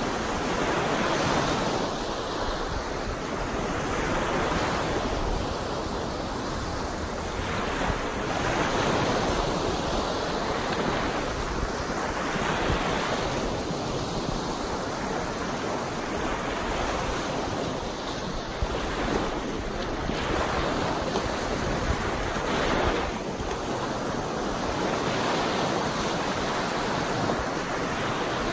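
Small, choppy lake waves breaking and foaming on a shallow shore: a continuous wash of surf that swells about every two seconds as each wave comes in. Wind rumbles on the microphone underneath.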